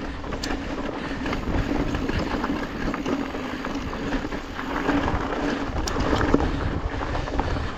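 Yeti SB 150 mountain bike rolling along a dirt trail, heard from a chest-mounted camera: tyre and wind noise with a steady low hum and scattered clicks and rattles from the bike.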